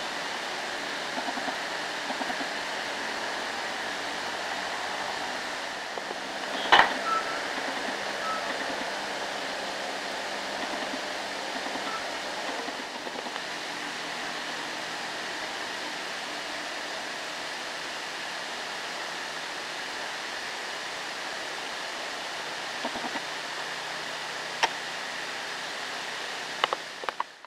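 Steady rushing background noise with one sharp knock about seven seconds in and a few short clicks near the end.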